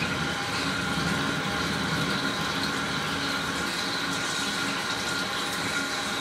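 Lathe drilling a hole with a large twist drill under flood coolant: steady splashing and spraying of coolant over the running machine, with a steady high whine from the spindle and cut.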